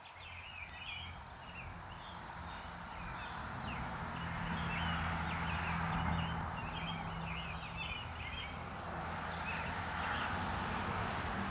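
Birds chirping, many quick short calls, over a steady low hum and background noise.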